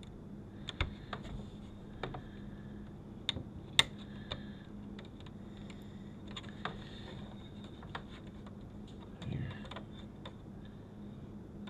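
Scattered light clicks and taps of hands handling the plastic and sheet-metal housing and circuit board of a car DVD entertainment unit while fitting a flat ribbon cable. The sharpest click comes about 4 seconds in, a soft bump about 9.5 seconds in, all over a faint steady hum.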